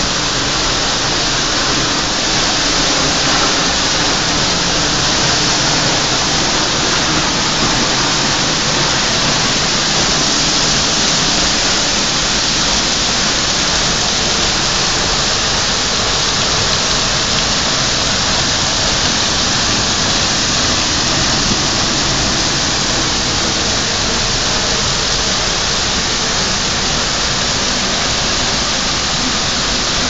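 Thornton Force waterfall pouring close by, heard from behind its falling curtain of water: a loud, steady rush that doesn't change.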